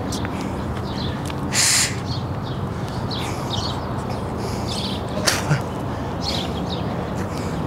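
Small birds chirping in short, repeated calls over a steady low background rumble. A brief hiss comes about one and a half seconds in, and a sharp click about five seconds in.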